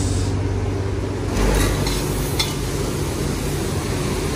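A steady motor hum under a hiss in a self-serve car wash bay, swelling a little about a second and a half in, with two sharp clicks soon after.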